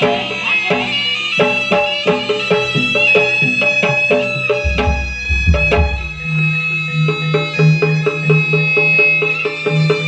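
Jaranan music from an East Javanese ensemble: a nasal reed wind instrument plays a long, held melody over evenly repeated gamelan-style metal strokes and drums. A deep drum or gong boom sounds about five seconds in.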